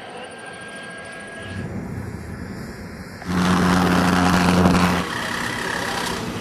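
Radio-controlled model airplane flying, its motor running steadily. It is quieter at first, then much louder for nearly two seconds from a little past three seconds in, and drops back abruptly.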